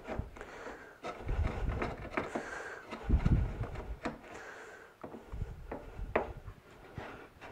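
Hand router plane's cutter shaving and scraping across the bottom of a lap-joint recess in poplar, in several irregular push-and-pull strokes with small knocks of the plane's base on the wood. The cutter is at its set depth, making contact across the bottom on final flattening passes.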